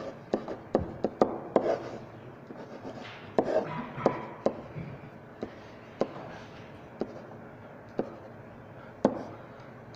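Marker pen writing on a whiteboard: an irregular series of sharp taps and short scratches as strokes and dots are put on the board, roughly one or two a second.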